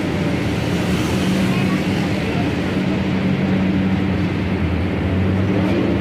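Light-rail car in motion, heard from inside the car: a steady running hum with the rumble of wheels on the rails.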